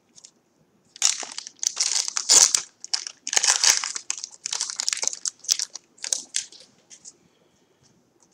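Trading card pack wrapper being torn open and crinkled by hand. There is a dense, irregular crackling from about a second in until about seven seconds, then it dies away.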